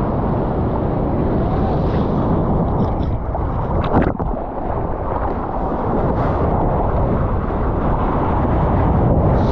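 Seawater rushing and splashing around a surfboard-mounted camera as the board moves through whitewater and onto a wave: a steady, dense rush with one sharp splash about four seconds in.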